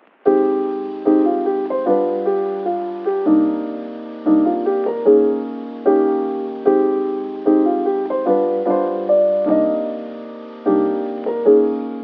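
Gentle piano music: chords struck about once a second and left to ring and fade.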